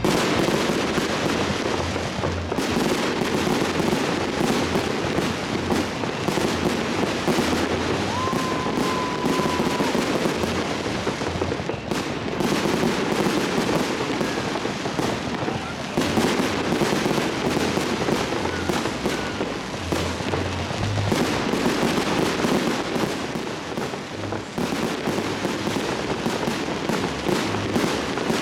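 Fireworks display: aerial shells bursting overhead in a dense, continuous run of bangs and crackling, easing only briefly a few times.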